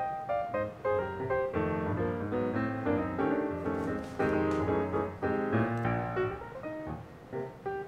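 Background music: a keyboard melody of quick, changing piano notes.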